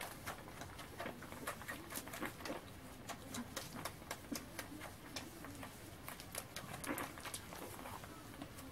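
Newborn Shih Tzu puppies suckling at their mother: many quick smacking clicks, with soft, low, wavering grunts among them.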